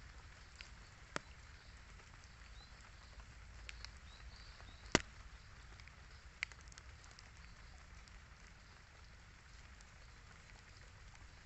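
Light drizzle falling: a soft, even hiss with scattered drops ticking, one sharper tick about five seconds in.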